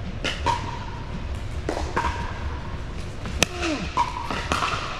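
Paddles striking a plastic pickleball in a rally: a series of sharp, hollow pocks about a second apart, ringing in a large indoor hall. The loudest crack comes about three and a half seconds in and is followed by a short falling squeak.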